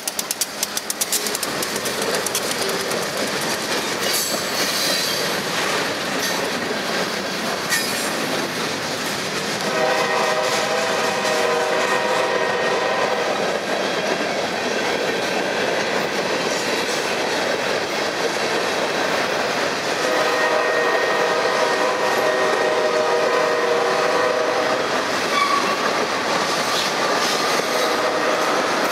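Quebec Gatineau Railway freight cars rolling past close by, wheels clattering over the rail joints. About ten seconds in the locomotive's horn sounds a long blast of some five seconds, and it sounds a second long blast about twenty seconds in.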